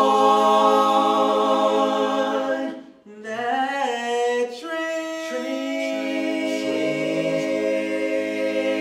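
Male vocal group singing a cappella in multi-part harmony. They hold a long chord, break off briefly about three seconds in, then sing a new phrase that settles into another sustained chord, with a low bass part joining near the end.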